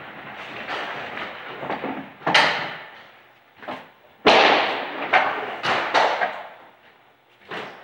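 Five-pin bowling alley: a run of sharp crashes and thuds from balls and pins, each echoing briefly in the hall. The loudest comes about four seconds in, as a ball is released onto the lane.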